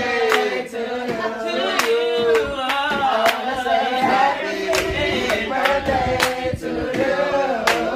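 Several voices singing together, with sharp hand claps cutting through the song.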